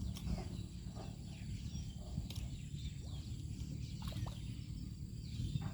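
Outdoor rural ambience: a steady high insect drone with a low rumble underneath, a few faint bird chirps and occasional sharp clicks.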